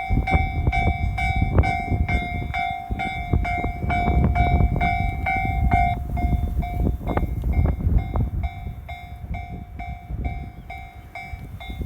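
Japanese railway level crossing alarm ringing in a steady repeating beat about twice a second, while a train runs past with a low rumble and wheels clicking over rail joints. The train noise eases off near the end.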